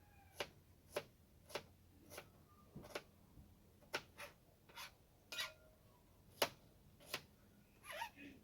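Kitchen knife chopping seasoning vegetables on a cutting board: a series of sharp taps at about one or two a second, a little uneven.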